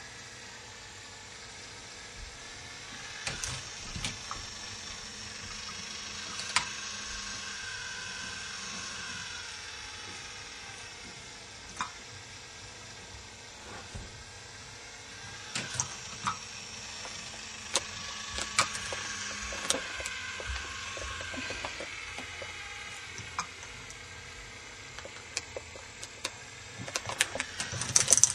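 K'nex ball machine running: plastic balls rolling along the plastic track in two long swells of rolling noise, with scattered clicks and clacks as balls drop and strike the pieces, a burst of them near the end.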